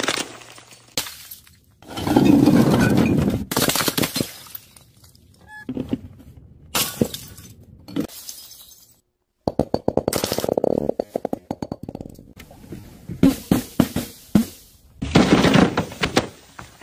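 A string of separate crashes as bottles are dropped and burst: glass bottles smashing and shattering on hard ground, with clinks and clatter of glass between them. A loud crash comes about two seconds in, a rapid rattle of knocks around ten seconds in, and another loud crash near the end.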